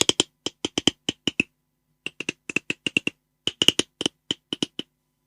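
Beatboxer making a rapid run of sharp mouth clicks in uneven groups, several a second, as a sound-effect imitation. There is a short break about a second and a half in, and the clicks stop shortly before the end.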